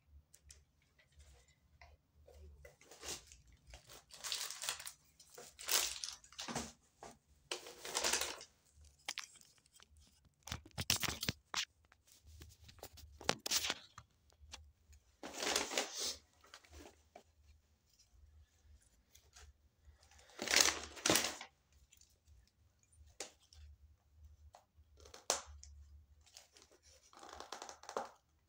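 Paper rustling and crinkling in separate bursts a few seconds apart: a paper receipt and a paper takeaway bag being handled and opened.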